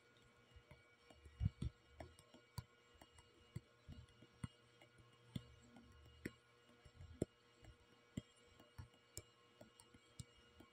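Faint, irregular taps of a fingertip on a phone's touchscreen, roughly one or two a second with a few louder ones, as dots are dabbed onto a drawing. A faint steady hum lies beneath.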